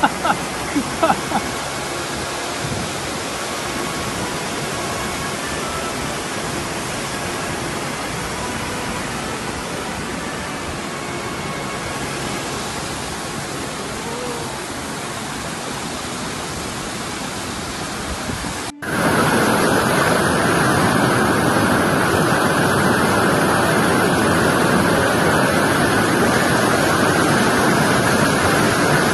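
Floodwater rushing, a steady loud noise of flowing water. About two-thirds of the way through it cuts abruptly to a louder, steadier torrent.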